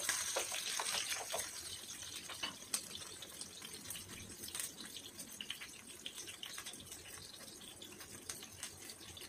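Onion pieces frying in hot oil in a wok, a steady sizzle with many small crackles. The sizzle is louder in the first second or two, while they are stirred with a spatula.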